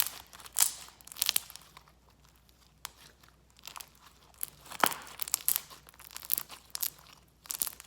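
Crunchy bead-filled slime being squished by hand, making irregular crackling pops, with the loudest pops about half a second in, near five seconds and near the end.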